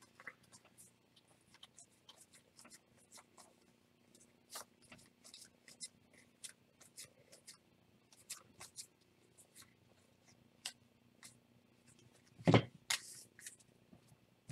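Trading cards being handled: scattered soft clicks and scrapes of cards being flipped, slid and set down, with one louder knock about twelve and a half seconds in.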